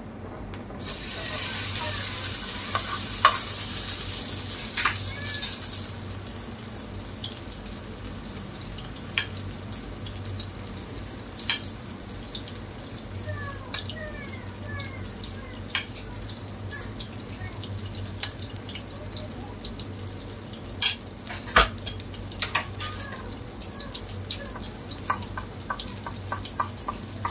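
Flattened eggplant in beaten egg batter frying in hot oil in a nonstick pan. A loud sizzle starts about a second in, when the eggplant goes into the oil, and after about five seconds it settles into a quieter, steady frying sizzle with scattered pops and crackles.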